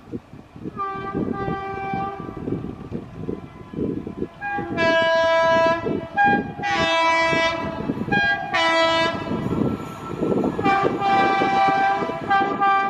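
Indian Railways locomotive horn sounding a series of blasts, two short ones first and then several longer ones of about a second each, over the steady rumble of a fast train passing.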